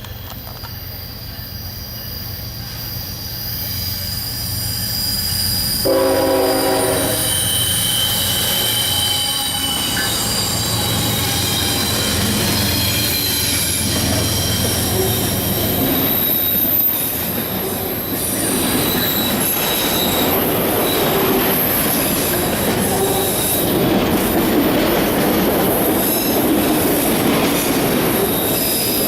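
CSX freight train passing: diesel locomotive rumble builds as it approaches, a short horn blast sounds about six seconds in, then the freight cars roll by with high-pitched wheel squeal and rail clatter.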